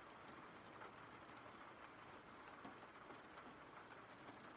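Faint, steady rain, a background rain-sounds track, with scattered small droplet ticks.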